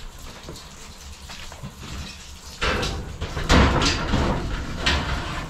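Footsteps, then from about halfway a loud clatter and scraping as objects are shifted and handled inside a corrugated metal storage unit.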